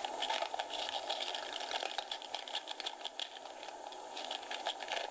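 A sound file playing through small computer speakers from a PC alarm-clock program: a steady, thin crackling and rattling noise full of rapid irregular clicks, with no bass. It cuts off abruptly at the very end.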